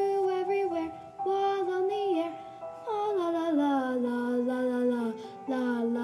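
Christmas song: melody over backing music, with a long note sliding down about three seconds in and settling low.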